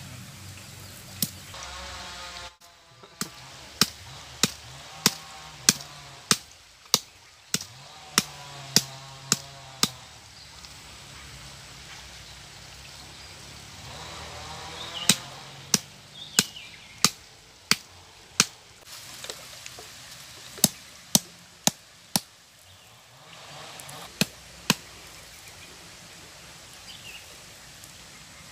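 Sharp knocks of a hand-held stone pounding on a flat rock, in runs of about one or two strikes a second with pauses between.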